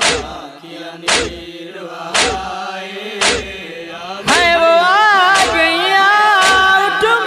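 Rhythmic matam chest-beating, a sharp slap about once a second, over a sustained humming vocal drone. About four seconds in, a voice comes in singing a long wordless note that wavers in pitch.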